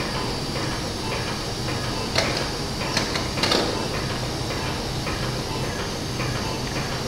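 Steady hiss with a low hum. A few sharp metallic clicks come between about two and four seconds in, as surgical pliers grip and twist a steel wire.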